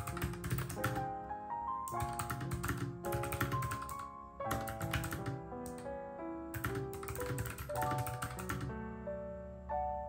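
Typing on a low-profile Bluetooth keyboard: quick bursts of key clicks with short pauses between words, over background music with piano-like notes.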